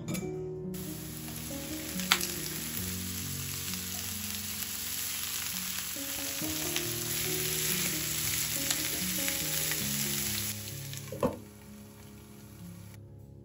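Vegetables sizzling in oil in a frying pan, starting about a second in and dying away after about ten seconds. A sharp knock of a utensil on the pan sounds about two seconds in and another near eleven seconds.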